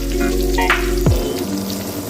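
Tofu strips sizzling and crackling as they shallow-fry in hot oil, under background music with steady held tones and a few falling swoops.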